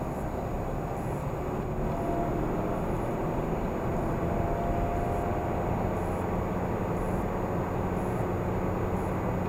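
Steady road and engine noise inside a moving car, heard through a dashcam: a low rumble of tyres and engine with a faint whine that comes and goes.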